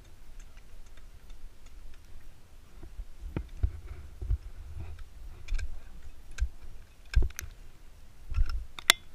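Irregular sharp clicks and knocks of ice axes being handled against hard ice, over dull low bumps, with the sharpest click near the end.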